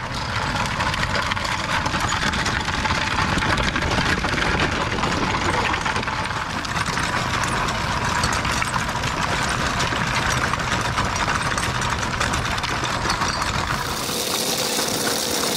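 Folding utility wagons' wheels rolling over gravel, with footsteps crunching: a steady rough rumble and grinding crunch. Near the end it gives way to a brighter hiss.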